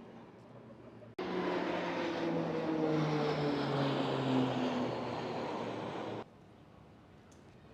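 Propeller airplane droning as it flies past, its pitch slowly falling. The sound cuts in suddenly about a second in and cuts off suddenly some five seconds later.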